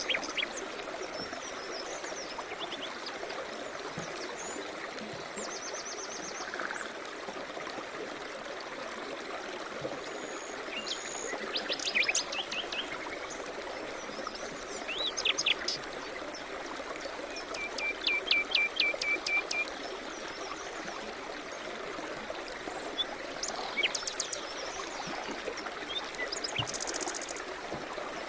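Small birds singing and chirping over the steady rush of a stream; the song comes in short phrases, one of them a rapid trill of repeated notes about two thirds of the way through.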